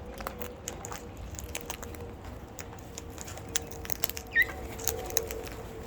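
Birds pecking at and cracking food with their beaks: scattered small clicks and taps, with one short high squeak about four seconds in.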